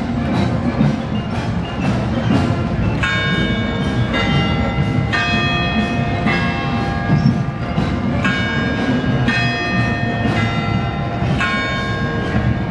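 High school marching band playing, drums keeping a steady beat. From about three seconds in, a ringing bell tone is struck about once a second, each at a different pitch.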